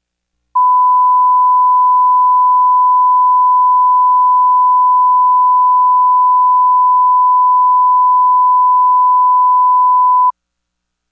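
Broadcast line-up test tone played with colour bars: one loud, steady, pure beep at a single pitch, the reference tone for setting audio levels. It starts about half a second in and cuts off abruptly near the end.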